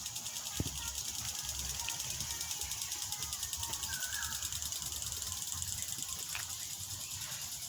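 Steady high-pitched insect chorus with a fast, even pulse, over an uneven low rumble. A short chirp comes about four seconds in.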